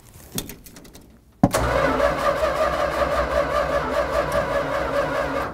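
Starter cranking the 1965 Dodge A-100's 318 V8: a sharp click, then about four seconds of steady, evenly pulsing cranking that stops abruptly without the engine catching. The engine is being flooded by a carburetor float that does not shut off the fuel.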